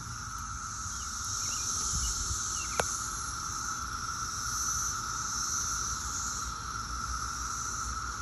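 Chorus of Brood X periodical cicadas: a steady, loud drone holding one pitch, with a higher shrill hiss over it. A single sharp click sounds a little under three seconds in.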